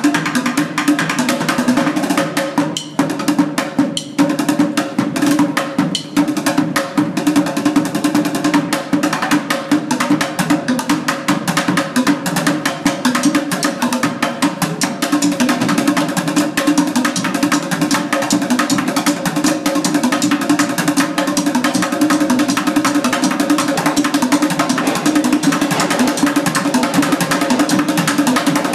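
Two street drummers playing plastic buckets with drumsticks: a fast, dense, continuous stream of stick hits on the bucket tops and rims.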